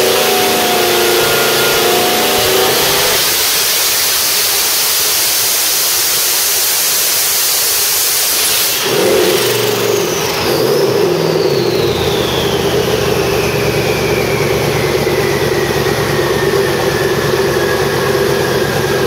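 Twin-turbo 428 Ford Windsor V8 running hard under load on an engine dyno, a loud dense noise for about nine seconds. Then the throttle shuts suddenly, the engine falls back to idle, and the turbochargers' whine slowly winds down in pitch.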